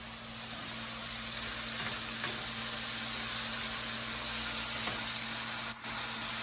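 Diced potatoes frying in bacon grease in a skillet, a steady sizzle, as they are stirred with a spoon.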